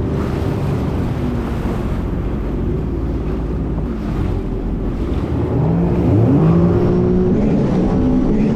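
300-horsepower jet ski engine running with rushing water and wind on the microphone. About six seconds in it revs up with a rising pitch and holds at the higher, louder speed.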